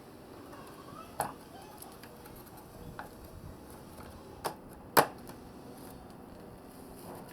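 A few sharp clicks and knocks, four in all, the loudest about five seconds in, over a low steady background noise.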